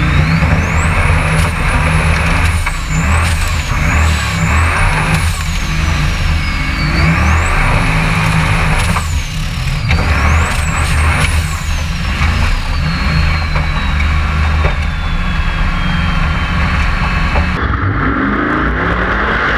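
A Formula Offroad unlimited-class buggy's engine revving hard under load, with a high whine rising and falling with the revs as the throttle is worked. Near the end the sound changes character as it switches to a second onboard camera.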